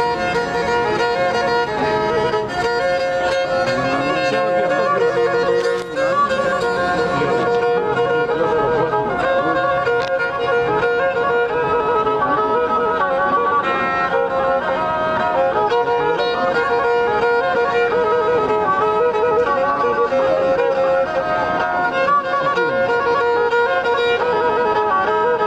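Pontic lyra (kemençe) bowed solo, playing a moving melody over a steadily held note.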